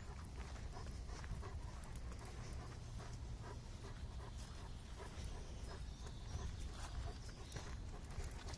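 An old Gordon Setter panting close to the microphone, with a low steady rumble underneath.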